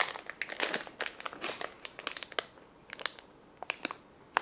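Ration food packaging crinkling as it is handled: a dense run of crackles at first, thinning to scattered ticks with quiet gaps near the end.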